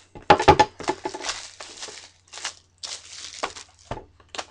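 Plastic shrink-wrap being torn and pulled off a cardboard box of trading cards, crinkling in irregular bursts, loudest about half a second in.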